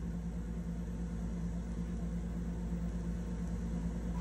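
Steady electrical hum with tape hiss from an old audio-visual training player during a silent gap in its soundtrack. A faint short blip comes about four seconds in.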